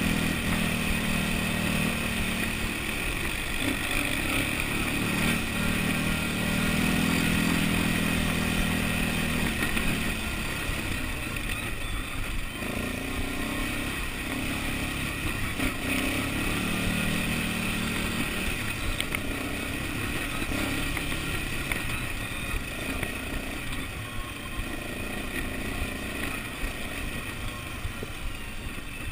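Massey Ferguson quad bike's engine running while riding, close to the microphone; its low note swells and drops back every few seconds over a steady rushing noise.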